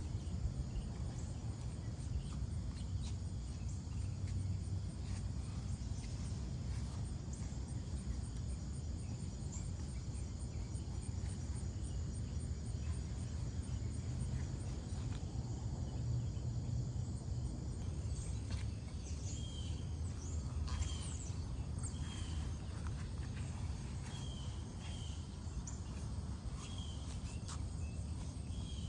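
Outdoor ambience: a steady low rumble under insects chirping high, with short, repeated bird-like chirps joining about two-thirds of the way through.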